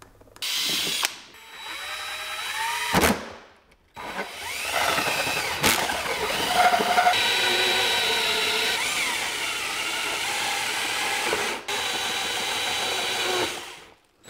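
Cordless drill spinning a hole saw through the plastic wall of a hard case. It runs in several bursts with short pauses, the longest about seven seconds, and the motor's pitch wavers as the saw bites into the plastic.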